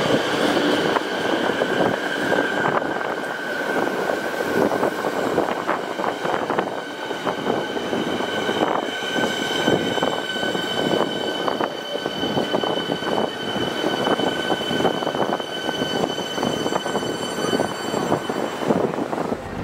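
Siemens Nexas electric multiple unit pulling in along the platform, its wheels clattering rapidly over the track. A steady high whine runs alongside and grows stronger about halfway through, then cuts off just before the end.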